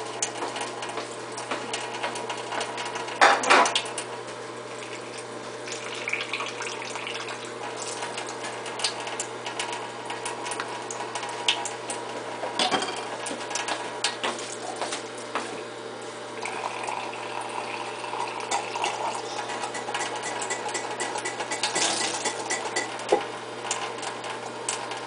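Tap water running steadily into a sink while baby bottles are rinsed, with occasional knocks of the plastic bottles and parts against the sink.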